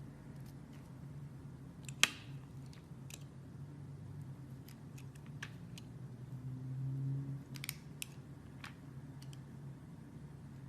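Blade cutting through a bar of soap: scattered crisp ticks and crackles, with one sharp snap about two seconds in.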